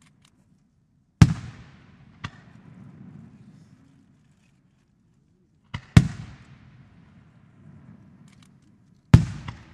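Aerial firework shells bursting: three loud booms, about a second in, about six seconds in and near the end, each trailing off in an echo. A smaller sharp crack follows the first boom and another comes just before the second.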